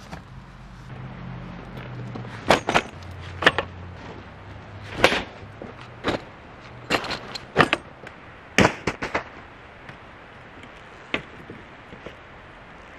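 Knocks and clunks of bagged camping furniture being lifted out of a van's rear doors and set down on the ground: about a dozen sharp knocks in irregular clusters, then one last knock a couple of seconds later.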